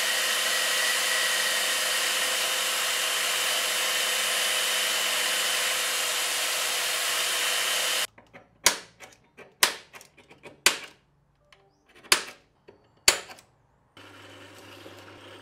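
Compact belt sander clamped in a bench vise, running with an aluminium bracket pressed against the belt: a steady loud whirr that cuts off suddenly about eight seconds in. Several sharp knocks follow, and near the end a drill press motor hums quietly.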